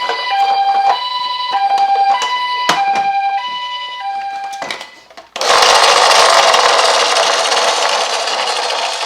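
Toy ambulance's electronic two-tone siren sounding the Japanese hi-lo 'pee-po' pattern, high and low notes alternating about every half second for four cycles and fading out. It is followed by a loud, steady rushing noise for the last few seconds.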